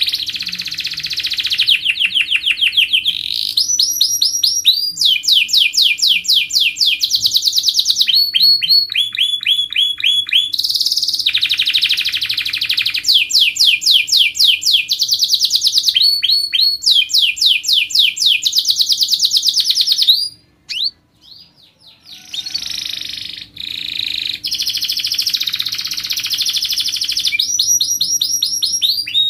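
Domestic canary singing a long song of fast rolling trills, phrase after phrase of rapidly repeated high notes, with a short break a little past two-thirds of the way through.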